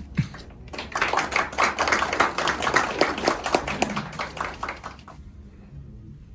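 A small audience applauding. The clapping starts about a second in and dies away about a second before the end.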